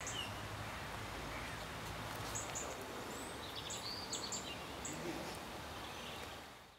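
Outdoor ambience: a steady hiss and low rumble with small birds giving short, high chirps several times, fading out near the end.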